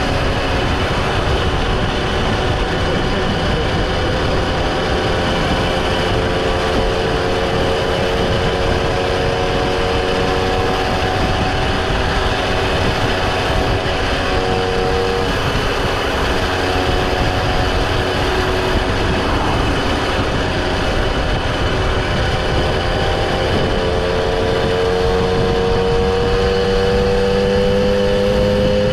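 Vehicle engine running on the move under heavy wind and road noise, its pitch climbing steadily near the end as it speeds up.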